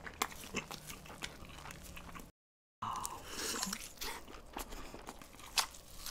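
Close-miked eating: biting and chewing a large omelette-wrapped roll, with short wet clicks and smacks. The sound drops out to dead silence for about half a second partway through.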